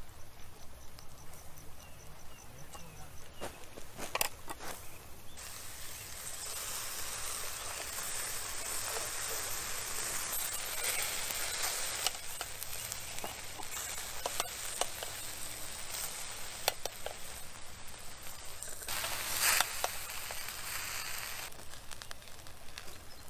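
Hot grilled kebab meatballs wrapped in caul fat sizzling and crackling as the metal skewers are slid out of them. There is a sharp metallic click about four seconds in, and the sizzling starts about five seconds in and stops shortly before the end.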